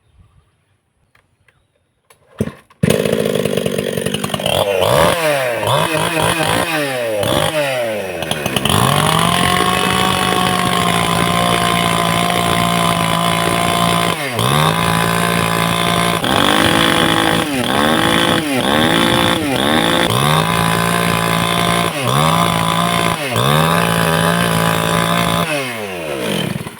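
Chainsaw engine starting up about three seconds in, revved up and down several times, then held at high speed with a few brief dips in pitch, and shut off near the end.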